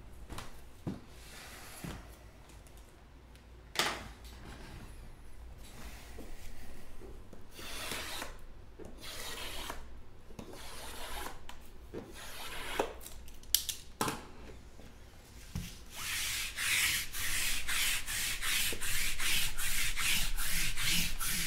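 Shrink-wrapped trading-card boxes being handled and their plastic wrap cut and scraped with a small blade: scattered rustling swishes and clicks. Near the end comes a run of quick, even rubbing strokes, about two or three a second.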